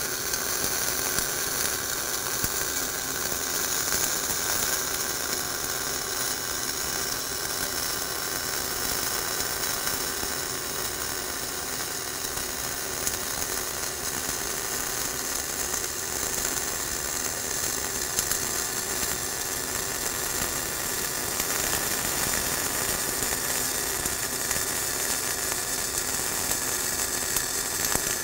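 Flux-core wire-feed arc welding overhead on a beveled plate, the root pass: the arc burns steadily without a break, set hot at 25 volts with 300 wire feed speed to keep spatter down.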